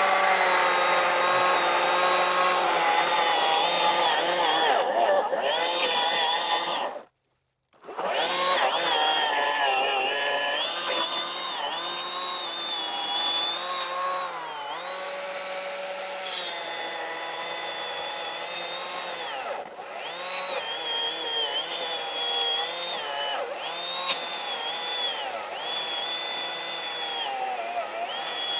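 Atlas 80V battery-electric chainsaw cutting the felling notch into a tree trunk, its motor whine dipping in pitch as the chain bites into the wood. The sound cuts out completely for under a second about seven seconds in, then carries on.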